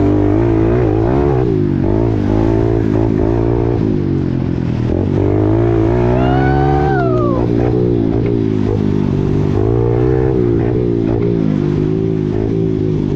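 Kawasaki KLX110 pit bike's small single-cylinder four-stroke engine running hard under riding load, heard from the onboard camera, its revs rising and falling constantly with the throttle. About six seconds in, a separate pitched sound falls briefly in pitch.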